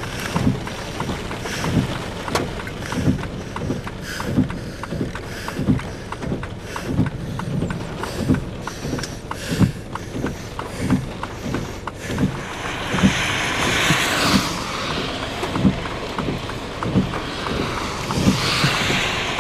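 Wind blowing across the microphone during a developing storm, with gusts swelling about halfway through and again near the end. Under it runs a regular low thump, about three every two seconds.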